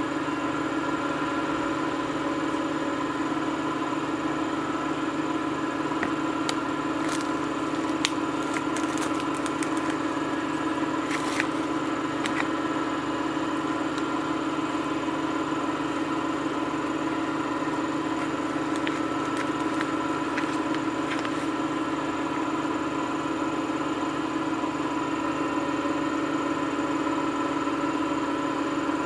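Samsung washing machine running a wash cycle: a steady motor hum with scattered light clicks and ticks in the middle.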